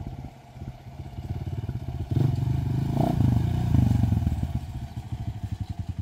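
Small motorcycle engine running with a fast, even putter; it grows louder about two seconds in and eases off again near the end.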